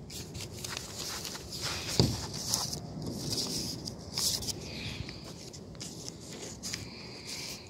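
Loose sheets of notebook paper being shuffled and handled, with irregular soft rustles and light taps and one sharper thump about two seconds in.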